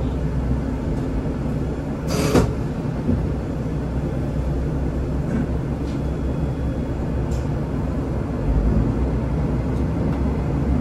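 Diesel railcar's engine running at a standstill, heard from inside the cab, with a brief hiss about two seconds in. The engine grows louder about eight and a half seconds in as the railcar pulls away.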